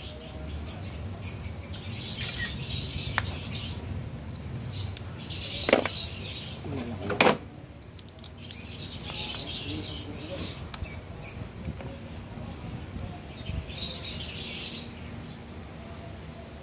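Birds chirping in repeated short bouts, with two sharp knocks about a second and a half apart near the middle.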